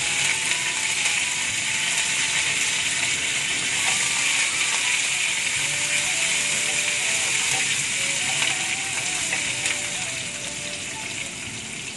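Curry leaves and tempering spices sizzling in hot oil and ghee in a wok while a wooden spatula stirs them. The sizzle eases a little near the end.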